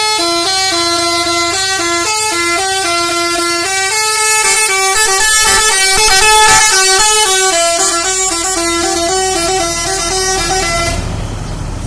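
Bus telolet horn playing a quick melody of short stepped notes, which stops about a second before the end, with the bus's engine running low underneath.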